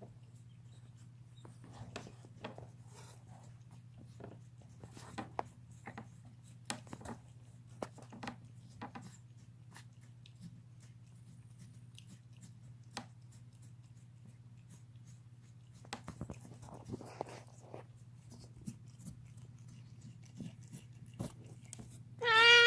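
Cat gnawing on a bone: a long run of small, irregular crunching clicks and cracks. Near the end a loud, wavering yowl breaks out, a screaming sound the owner thinks may have to do with the cat being deaf.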